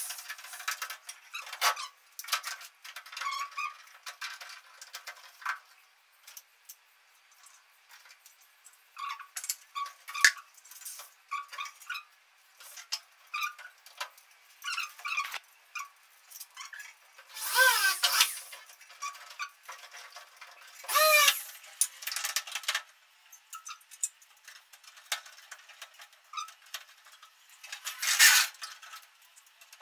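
Intermittent light metallic clinks, taps and scrapes of aluminium LED profile channels and hand tools being handled overhead, with two short squeaks with a wavering pitch past the middle and another sharp scrape near the end.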